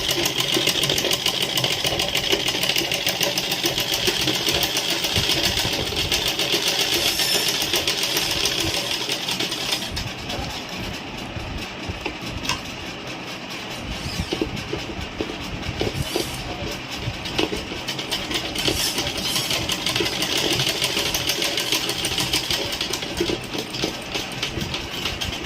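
Domestic sewing machine running continuously for hoop embroidery, the needle going up and down in a rapid, even rhythm; it runs a little quieter for a few seconds about halfway.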